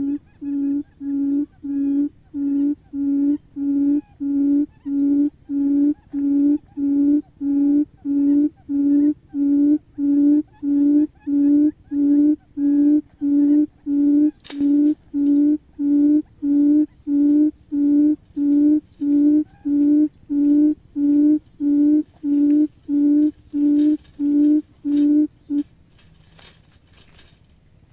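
Buttonquail call: a low hoot of steady pitch repeated a little over once a second, which stops near the end, followed by a few soft clicks and rustles.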